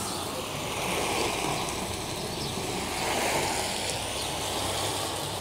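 Hose nozzle spraying a fine shower of water onto rows of plastic seedling cups of damp peat: a steady hiss and patter that swells and eases as the spray is swept across the cups.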